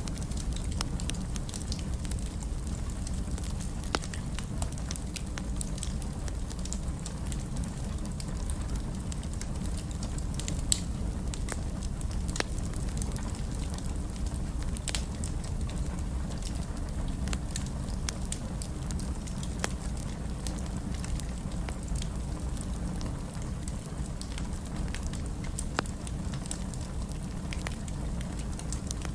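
Wood fire burning in a fireplace: a steady low rumble of flame with scattered crackles and occasional sharper pops of burning wood.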